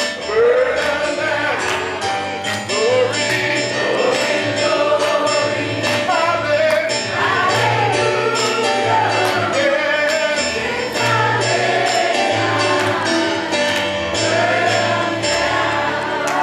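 Gospel music: voices singing over a bass line, with a steady beat of percussion hits.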